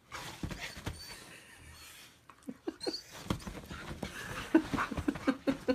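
A dog scrambling around on a bed: rustling covers and quick, soft thumps, getting busier and louder from about three seconds in.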